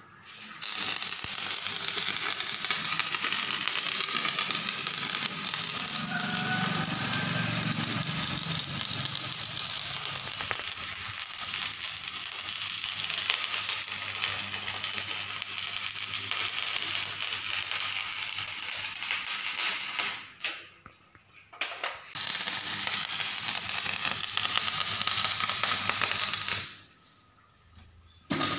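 Stick (arc) welding on steel plate: the electrode's arc crackles and sizzles steadily as a bead is run. It stops about twenty seconds in, starts again two seconds later, and stops for good near the end.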